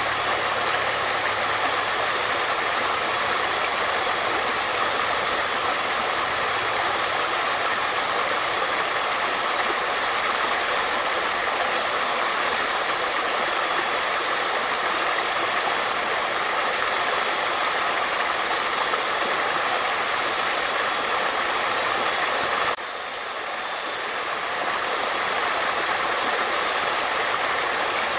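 Flowing water rushing steadily as a dense, even hiss. Near the end it suddenly drops quieter and swells back up over a few seconds.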